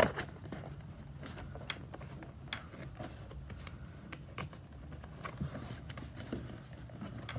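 Plastic toy-car carrying case and its movable plastic dividers being handled: scattered small clicks and taps, with a sharper click right at the start.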